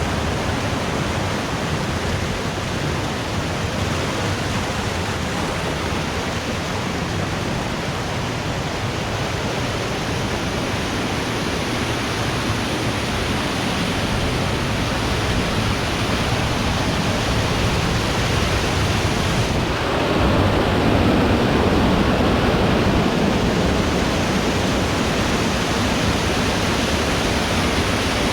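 Putna waterfall rushing, a steady even noise of falling water. About two-thirds of the way in it turns a little louder and fuller while the hiss at the top thins out.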